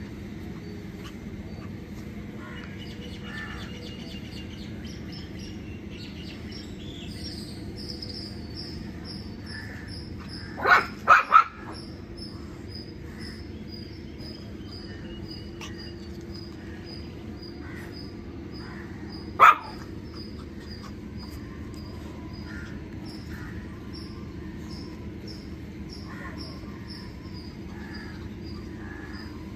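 Shih Tzu barking: three quick loud barks about a third of the way in, and a single bark about two-thirds through. Behind them a bird chirps over and over, short high chirps about twice a second.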